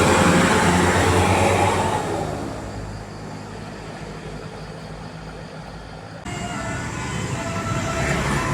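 A large bus passes on an uphill road, its diesel engine loud and then fading away over the first three seconds. After an abrupt cut about six seconds in, another vehicle approaches and short tones at several pitches begin, the notes of a multi-tone telolet horn.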